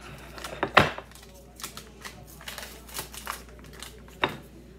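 Knife cutting a piece from a stick of butter and its paper wrapper crinkling, with a run of light clicks and taps and two sharper knocks, one about a second in and one near the end.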